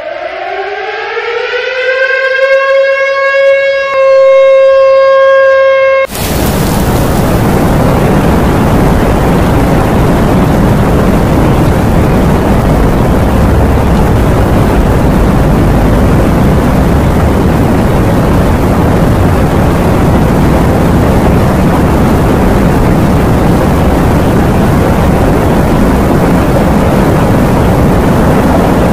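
A siren winds up in pitch to a steady wail and cuts off suddenly about six seconds in. It is followed by a loud, steady roar of cyclone wind and heavy surf.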